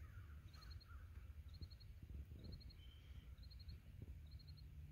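Near silence with a low rumble, and an insect chirping steadily: short chirps of four quick pulses, repeating about once a second.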